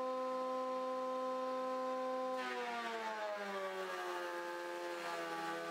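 JET JJP-8BT jointer/planer's 13-amp motor and cutterhead whining steadily, then dropping slowly in pitch about two seconds in as a 2x4 feeds into the planer and the cutting noise starts. The motor is bogging down under the load of the cut.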